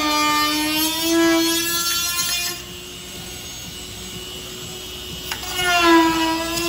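Handheld rotary tool with a small round bit whining as it grinds into a clear polycarbonate RC car body. Its pitch sags under the cut, the whine falls away about two and a half seconds in, and it comes back strongly near the end.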